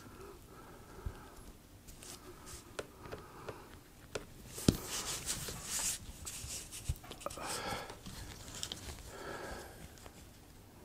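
Pencil marking out a sheet of EVA foam in short scratchy strokes, with scattered light clicks and one sharper knock about five seconds in.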